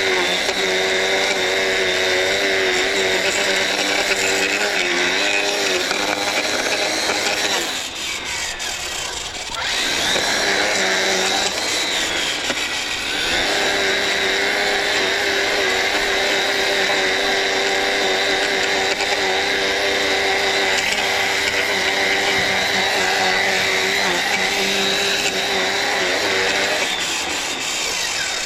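TORO 60-volt battery stick edger running with a steady motor whine while edging. It eases off for a couple of seconds about a third of the way through, then speeds back up, and it stops at the end.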